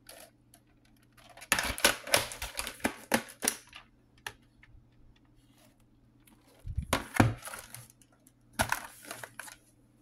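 VHS cassettes and their plastic cases being handled: three spells of clicking and clattering plastic.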